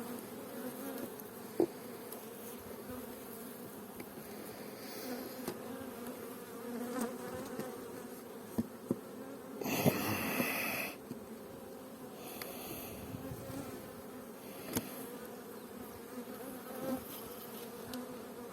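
Honeybees humming steadily around an open hive, an even low drone. A few sharp clicks and knocks are heard, and a louder rush of noise lasts about a second near the middle.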